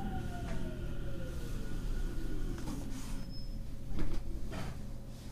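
Onboard a JR Central 313 series electric train slowing down: the motor whine falls steadily in pitch over the first couple of seconds and fades out over a low running rumble. A few sharp clicks follow, the loudest about four seconds in.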